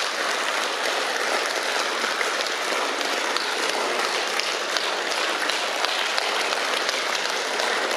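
Audience applauding steadily, a dense even clapping of many hands.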